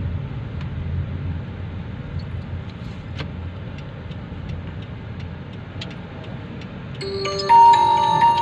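Low, steady rumble of a car moving slowly, heard from inside the cabin. About seven seconds in, a loud chime of several ringing tones cuts in and holds for about a second.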